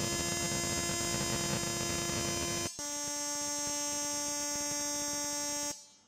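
Spark probe of an Oxford Instruments PMI-MASTER Pro mobile optical emission spectrometer discharging against an aluminium sample during an alloy analysis burn: a steady electric buzz rich in overtones. It breaks off for an instant a little under three seconds in, resumes slightly lower in pitch, then cuts off shortly before the end.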